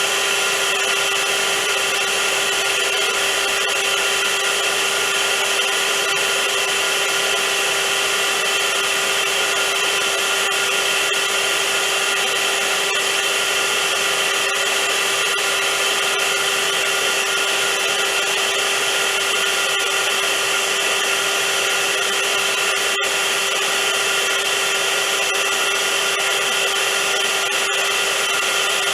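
Vacuum cleaner running steadily: a constant rush of air with a steady motor hum and a high whine held at one pitch.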